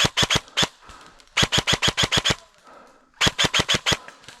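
Airsoft gun firing three short bursts of sharp, snapping shots, about eight shots a second, with brief pauses between the bursts.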